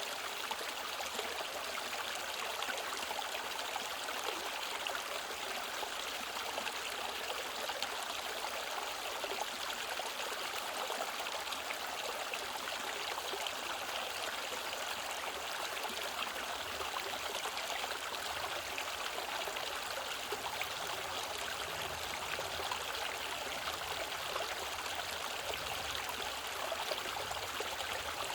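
Mountain stream water rushing and trickling over rocks, a steady, unbroken flow.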